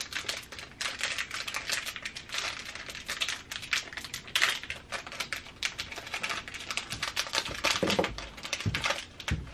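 Plastic candy-cane wrapper crinkling and crackling in a run of fast, irregular clicks as it is handled and picked at. There are a couple of dull knocks on the table near the end.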